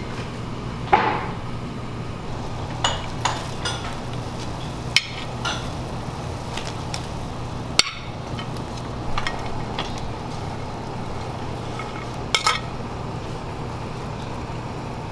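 Kitchen clatter: scattered clinks and knocks of dishes and utensils over a steady low hum.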